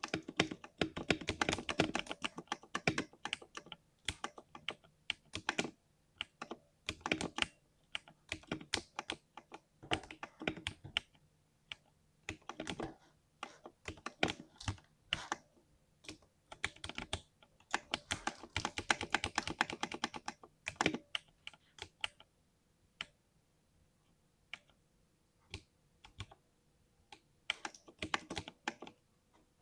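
Mechanical 60% keyboard being typed on, with deep 'thock' keystrokes in fast runs broken by short pauses. The keystrokes thin out to scattered single presses for a few seconds past the middle, then pick up again near the end.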